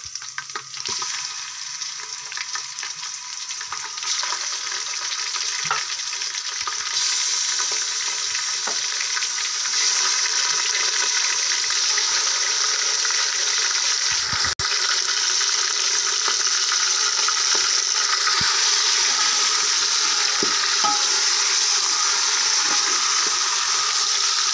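Raw beef pieces sizzling as they fry in hot ghee in an aluminium pressure cooker; the sizzle grows louder over the first ten seconds as more meat goes in, then holds steady.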